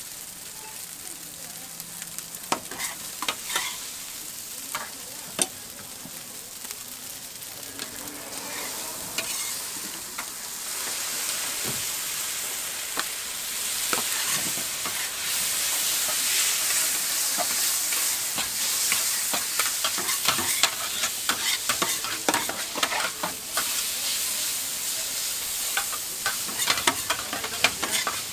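Noodles frying on a flat steel griddle: a steady sizzle that grows louder about ten seconds in, with sharp clicks and scrapes of metal spatulas against the griddle, coming thick and fast near the end.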